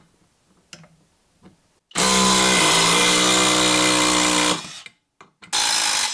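Cordless drill running under load as it drives a screw into wood, a steady motor whine whose pitch sags slightly as the screw bites. It stops, then runs again in a shorter burst near the end.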